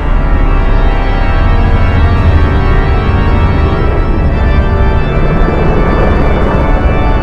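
Scary organ music: sustained organ chords held over a deep low drone, starting abruptly.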